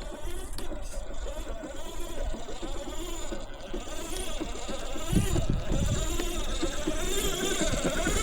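Simulated Toyota FJ40 engine sound from a GT Power sound module's small speaker on an RC crawler, its pitch rising and falling with the throttle.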